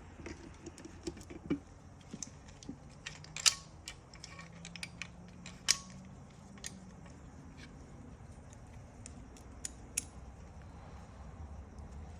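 Small plastic and metal parts of a seatbelt retractor being handled and fitted together by hand: scattered light clicks and taps, two sharper clicks about three and a half and six seconds in, and another near ten seconds.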